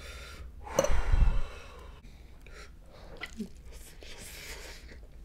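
A man's loud, breathy exhale with a falling groan about a second in, then quieter breaths: his reaction to the burn of very spicy ramen.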